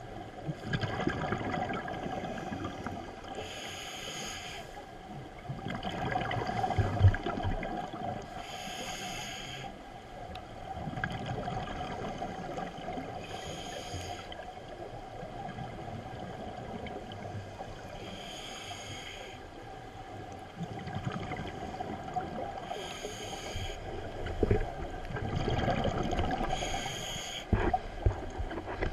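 Scuba diver breathing through a regulator underwater: six short hissing inhales, about every four and a half seconds, each followed by a rumbling gurgle of exhaled bubbles.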